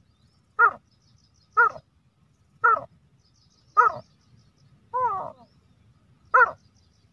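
A man imitating a grey francolin (teetar) by calling through his pinched nose, giving the male's fighting call: six short, loud calls about a second apart, the fifth longer and sliding in pitch.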